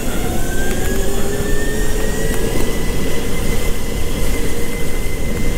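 Rental go-kart accelerating out of a corner, heard from on board: a whine that climbs slowly in pitch and then levels off, over a heavy steady rumble of wind and tyre noise.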